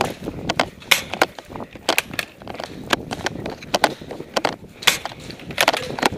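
Quick footsteps of a player running on a concrete floor: a string of sharp, uneven steps, several a second.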